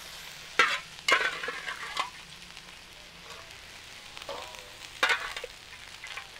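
Chopped pork sizzling in a pan with ground spice paste while a spatula stirs it, scraping and knocking against the pan; the sharpest knocks come about half a second and a second in, and again about five seconds in.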